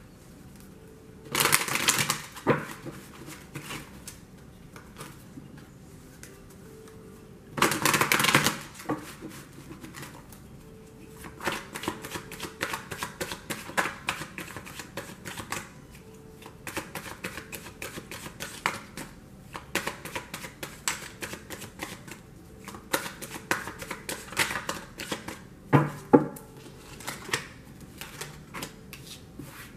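A tarot deck being shuffled by hand: two long rushing riffles in the first nine seconds, then a run of quick card clicks and snaps with a louder pair of snaps near the end.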